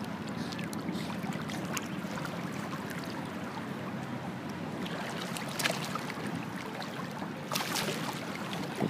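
Water sloshing and lapping around a swimming dog as it paddles alongside, with a few sharper splashes in the second half.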